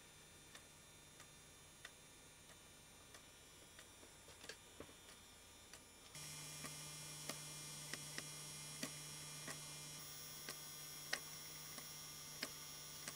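Tape transport of a JVC GR-D725 miniDV camcorder ticking rhythmically as it plays, about one faint tick every two-thirds of a second: a broken tooth on a gear wheel makes the transport twitch and jump. A steady hum joins about six seconds in, and the ticks carry on over it.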